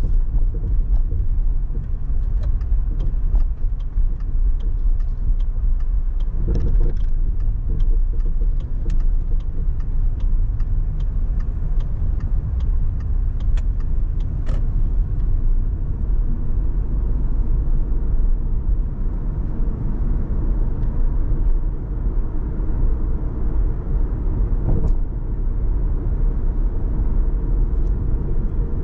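Car driving through city streets: a steady low rumble of road and tyre noise. A run of faint, evenly spaced ticks runs through the first half, and there is a brief louder swell about seven seconds in.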